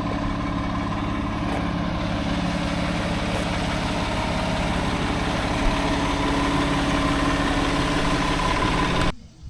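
Concrete mixer truck's diesel engine idling steadily with a low rumble, cutting off suddenly near the end.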